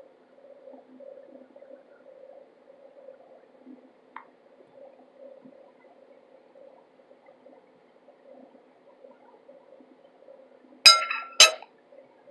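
Soft mouth sounds of chewing a spoonful of dry cornstarch. Near the end, a metal spoon is set down on a plate with two ringing clinks about half a second apart, much louder than the chewing.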